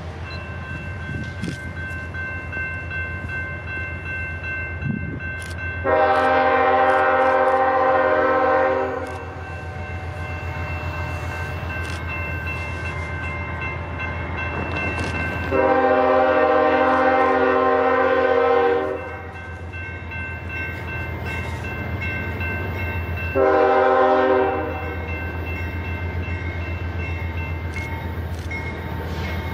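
Diesel freight locomotive's multi-note air horn sounding two long blasts and a short one, the opening of the long-long-short-long grade-crossing signal as it approaches the crossing. Under the horn is the steady low rumble of the locomotive's engine.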